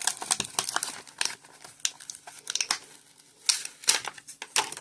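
Plastic packaging crinkling and crackling as it is handled by hand, in irregular bursts, with a few louder crackles late on.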